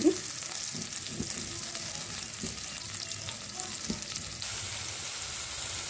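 Butter melting in a steel pot over a low gas flame, sizzling steadily with small pops as its water cooks off, the first stage of making ghee.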